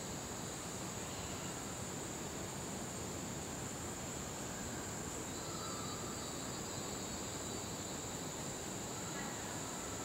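Insects droning steadily in one unbroken high-pitched tone over a soft hiss.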